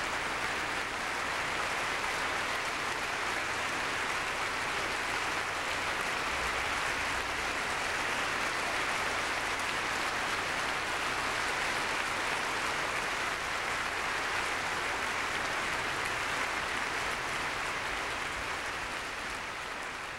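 Concert-hall audience applauding steadily, a dense, even clapping that begins to fade near the end.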